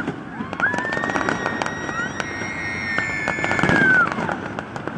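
Fireworks going off in a dense barrage: rapid crackling bangs with several shrill whistles over them, one rising about half a second in and falling away near the end.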